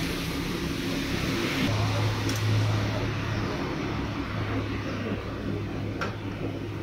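Steady mechanical hum over background noise, with a low drone setting in after about two seconds and a light click near the end.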